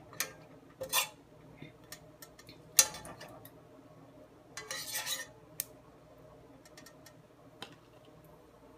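A spoon knocking and scraping against a saucepan while melting ghee is spread around the pan. There are a few sharp clicks, the loudest about three seconds in, and a short scrape about five seconds in.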